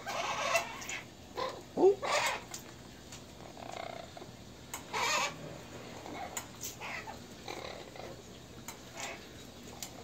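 Blue-fronted Amazon parrot bathing in a water bowl: a few short bursts of wing-flapping and splashing, at the start and about 2 and 5 seconds in, with a brief low grunt from the bird near 2 seconds and scattered light clicks.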